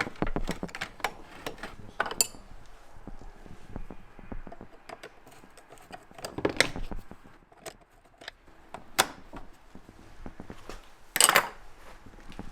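Scattered clicks, taps and light metallic clinks of hand tools and parts being handled, with a few louder knocks and a longer clatter about eleven seconds in.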